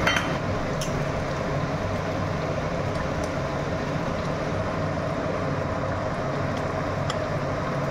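A steady low hum and rush, with a few faint clicks as a steel spatula stirs the curry against an aluminium kadai.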